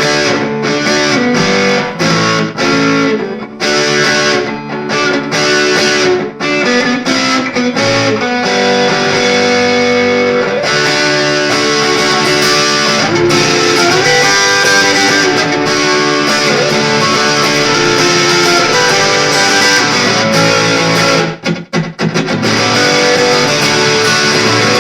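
Electric guitar played through distortion on its neck pickup: short choppy chords for about the first ten seconds, then held, ringing notes, with a brief stop near the end.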